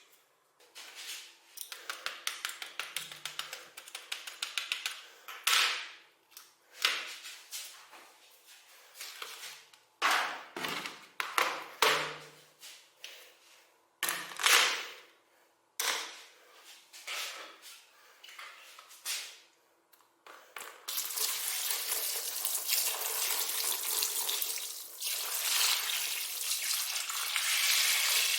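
Hard plastic keyboard parts clicking and clattering in short bursts, then a tap starts running steadily about twenty seconds in.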